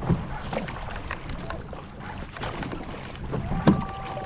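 Double-bladed kayak paddle strokes splashing through choppy sea water, over a steady wash of wind and water. About three and a half seconds in, a steady two-note tone starts and holds.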